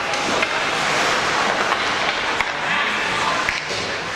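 Game ambience from the sidelines: a steady hubbub of spectators and players' voices, with several brief sharp knocks.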